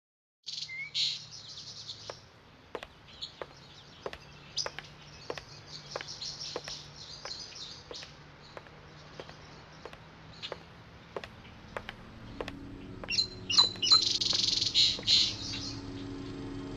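Small birds chirping over a regular run of footsteps, about one and a half a second. Near the end the chirping is at its loudest and a low, sustained music drone fades in beneath it.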